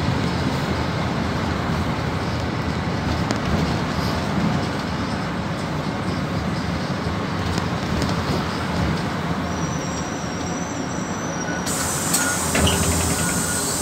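Bus engine and road noise heard from inside the cabin of a PAZ 32054 bus while it drives, a steady rumble and hum. Near the end a high hiss comes in suddenly.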